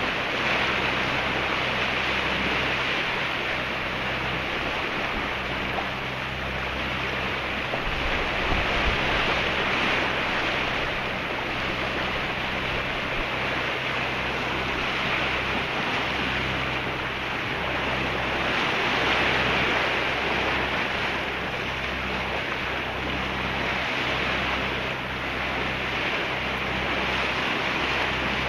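Bow wave and water rushing and hissing along the hull of a Tayana 55 sailboat under way, with wind buffeting the microphone. A low steady hum runs underneath.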